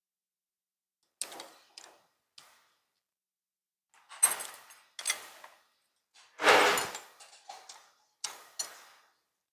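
Metal spoons and chopsticks clinking and knocking against bowls during a meal: a string of short, sharp clatters, the loudest and longest about six and a half seconds in.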